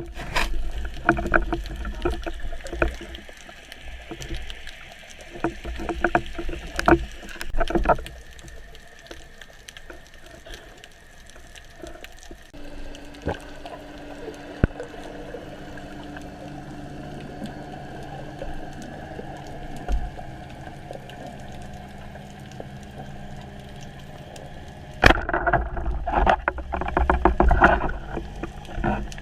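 Water sloshing and splashing around a spearfisher in the sea, in irregular bursts. A steadier stretch in the middle carries a constant low hum under the water noise.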